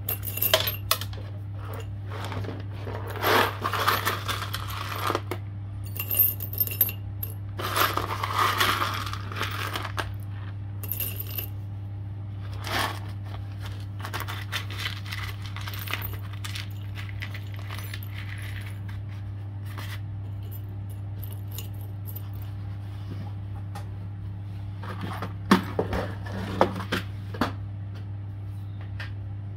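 Small pieces of scrap metal clinking and clattering as they are handled and dropped, in bursts with quieter stretches between, over a steady low hum.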